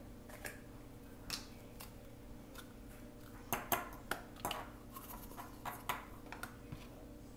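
Light clicks and taps of plastic Play-Doh toy pieces and a dough can being handled on a tabletop: scattered single knocks, with a quick run of them about three and a half seconds in.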